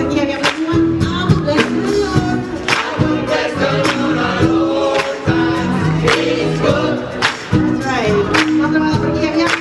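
Live gospel choir singing with a band, held notes and gliding vocal lines over a steady drum beat.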